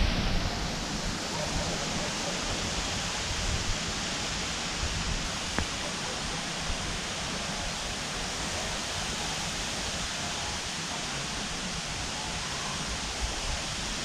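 Steady wind rushing and rustling through the leaves and tall sedge.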